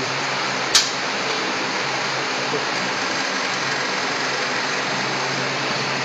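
Electric motor of a semi-automatic aluminium-cap vial crimping machine running with a steady hum, with one sharp click a little under a second in.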